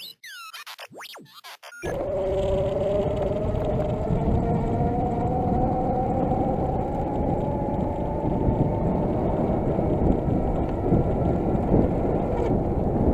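Electric bicycle's front geared hub motor whining, its pitch rising slowly as the bike picks up speed, under loud rushing noise from wind on the fork-mounted microphone and the tyres on a dirt track. The first two seconds hold quieter sweeping electronic tones before the ride sound cuts in.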